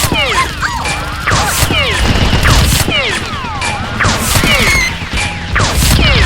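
A staged blaster fight made of added sound effects: rapid volleys of shots and impacts mixed with many short, falling whistling tones, over background music.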